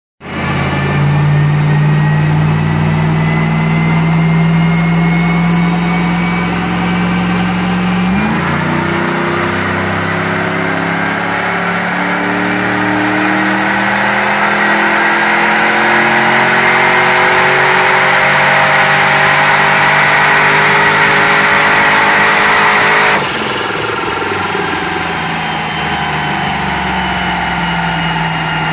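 Chevrolet Silverado pickup's engine making a pull on a chassis dyno. After running steadily for about eight seconds, the engine note climbs smoothly for about fifteen seconds, then cuts off suddenly as the throttle closes, and it settles back to a lower steady run.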